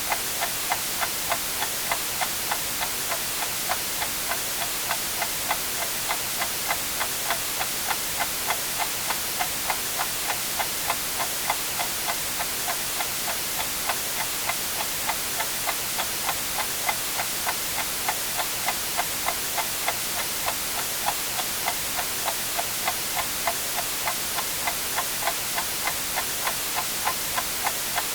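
Mechanical clock ticking steadily, about two ticks a second, over a constant hiss of white noise.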